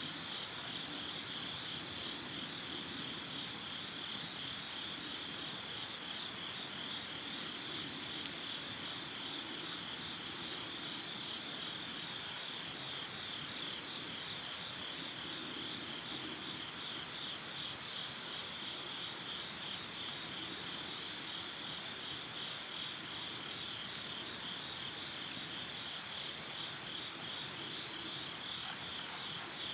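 Chorus of insects chirping steadily in a continuous, high-pitched trill with a fast pulsing texture.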